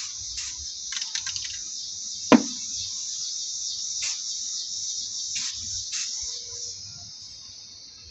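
Aerosol spray-paint can hissing in short spurts, with a sharp click a little over two seconds in, over a steady high hiss that fades near the end.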